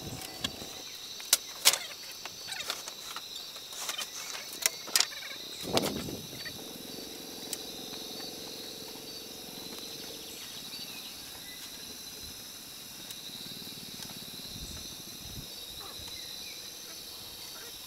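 Steady, high-pitched chirring of insects such as crickets, with a handful of sharp knocks in the first six seconds.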